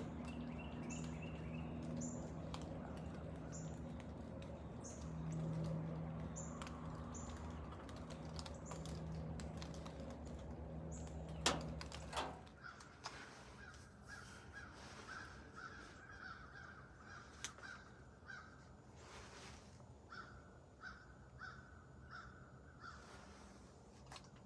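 A steady low hum with a held low drone runs for about the first half and stops just after a sharp click. Then a crow caws in several runs of short, evenly spaced calls.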